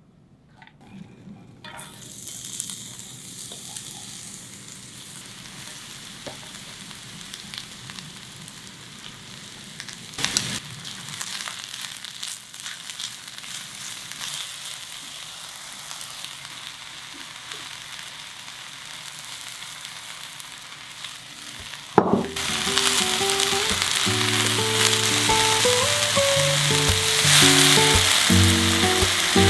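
Food sizzling and frying in a hot pan. It starts about two seconds in as a steady crackling hiss, with a sharp knock around ten seconds in. From about two-thirds of the way through the sizzling is louder, and background piano-like music plays over it.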